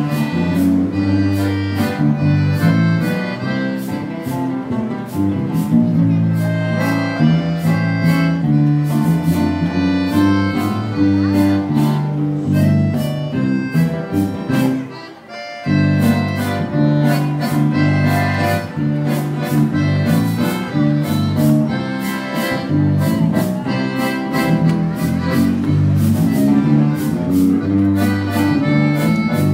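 A waltz played by a small band, led by accordion over guitars with tambourine on the beat. The music drops out briefly about halfway through, then picks up again.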